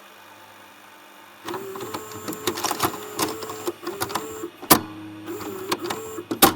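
Video cassette recorder's tape mechanism running: a faint hum, then about a second and a half in a motor starts whirring with a wavering pitch amid mechanical clatter, broken by two sharp clicks, one past the middle and one at the end.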